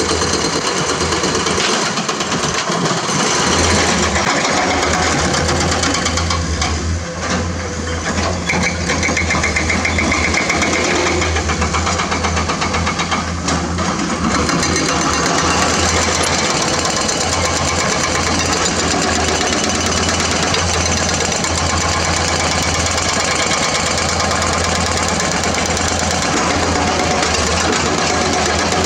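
Diesel engines of tracked excavators running steadily, a dense mechanical rumble with a strong low hum and fine rapid pulsing, dipping briefly about seven seconds in.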